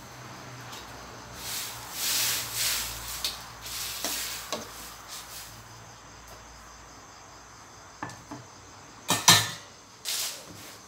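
Cooking at a stainless wok over a gas burner: about two to three seconds of sizzling and stirring noise in the wok early on, then a few sharp metal clanks of pan and bowl near the end, the loudest about nine seconds in. Crickets chirp steadily behind.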